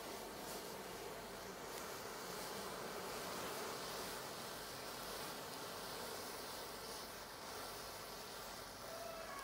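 Burning matchsticks in a chain reaction, their flames making a steady hiss.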